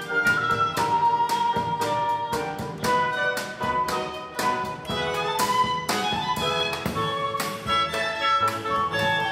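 Live tango played by a sextet of grand piano, violin, flute, clarinet, double bass and drums: held melody lines over a steady pulse of drum and cymbal strokes.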